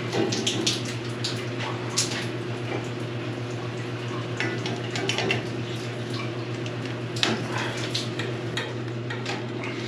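Water draining and dripping from a freshly cut boiler feed pipe, with scattered light metallic clinks and a steady low hum.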